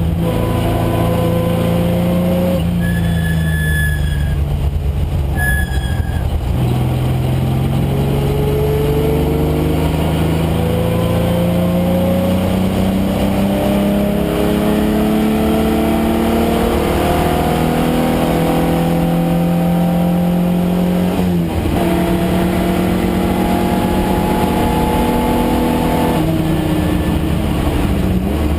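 Datsun 510 wagon's swapped-in Nissan VG30 3.0-litre V6 running hard under race load. The revs fall for a few seconds, then climb steadily for about fourteen seconds, drop sharply about two-thirds of the way through, climb again and drop once more near the end. Three short high squeals come in the first six seconds.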